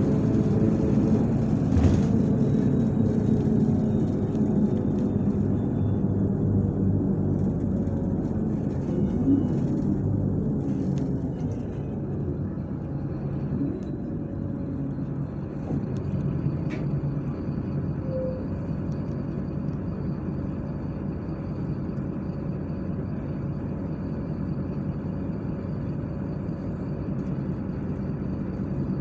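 MAZ-103 city bus heard from inside the cabin while under way: the diesel engine's hum with road noise, louder for the first dozen seconds and then easing to a quieter, steady run. A faint high steady whine joins about halfway through.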